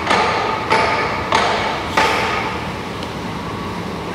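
A hammer striking steel: four ringing blows about two-thirds of a second apart, each leaving a metallic ring that fades, then steady background noise.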